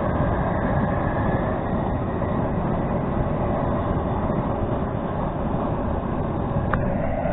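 Propane cooker burner running steadily under a large aluminum boiling pot, a constant rushing noise as it heats the crawfish-boil water.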